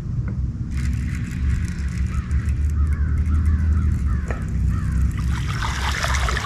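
A hooked largemouth bass splashing and thrashing at the water's surface on the line, starting about five seconds in, over a steady low rumble. Before it, a run of short falling chirps repeats about three or four times a second.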